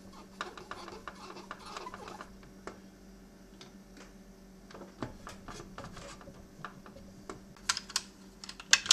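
Plastic parts of a PlayStation 1 console being handled and fitted back together: a run of light clicks and taps, with a few sharper, louder snaps near the end.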